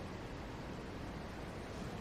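Faint, steady background hiss of room tone, with no distinct sound events.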